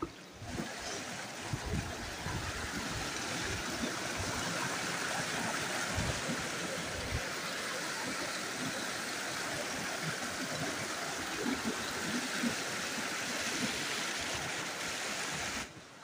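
Shallow stream rushing and gurgling over rocks, a steady water noise, with a few low thumps in the first half; it cuts off suddenly shortly before the end.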